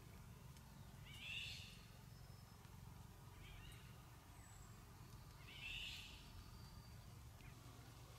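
An animal calls twice, each call short and high-pitched, about four seconds apart, with a fainter call between them, over otherwise near-silent surroundings.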